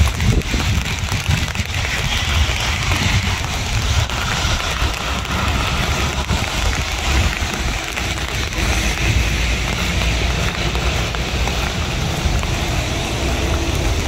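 Heavy rainforest rain falling steadily: a dense, even hiss of drops with a deep rumble underneath.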